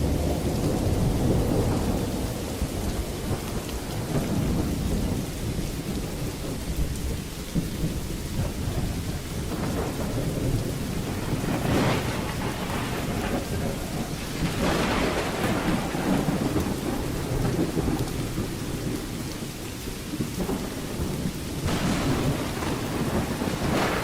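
Steady heavy rain with low rolling thunder that swells and fades several times, loudest at the start, again near the middle and near the end.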